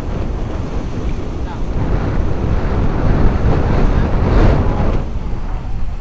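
Strong wind buffeting the microphone, a loud rumbling rush that rises and falls.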